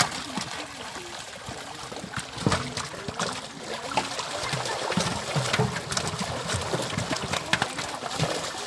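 Pond water splashing and trickling, with many short, irregular splashes.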